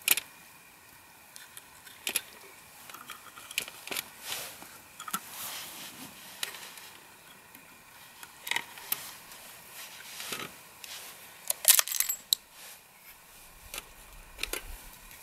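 Handling noise from a pistol being worked loose from a wooden clamp rig by hand: scattered metallic clicks, rattles and short scrapes, the sharpest in a quick cluster about three-quarters of the way through.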